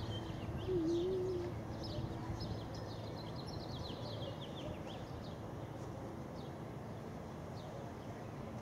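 Small birds chirping: many short, quick, falling chirps, dense at first and thinning out in the second half, over a steady low outdoor background hum. About a second in there is a brief low wavering tone.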